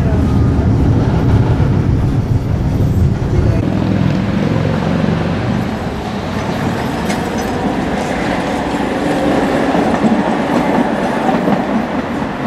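Tram running on its rails. For the first few seconds it is a heavy low rumble heard from inside the driver's cab. After about four seconds the sound changes to the lighter rattle and hiss of a tram's wheels on the track heard from the roadside.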